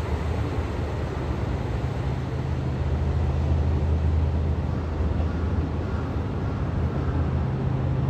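KiHa 183 series diesel railcar's engines running with a steady low drone as the train moves away along the track, with wheel and rail noise.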